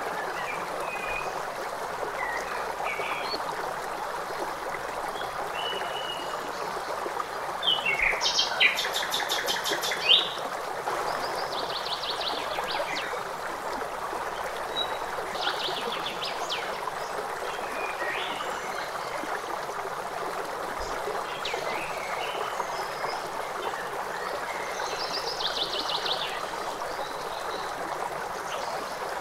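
Steady rush of running water with birds chirping and trilling over it, loudest about eight to ten seconds in.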